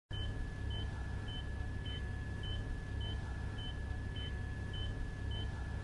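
Short high electronic beeps repeating evenly, a little under twice a second, over a steady low hum and a constant thin high whine.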